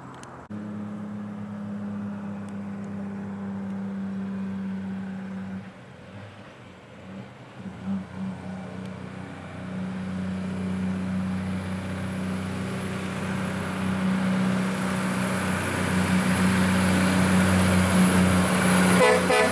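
Heavy diesel truck engines pulling uphill, a steady low engine note. Over the last ten seconds a truck and trailer comes closer and the engine grows steadily louder, with a thin high whine above it.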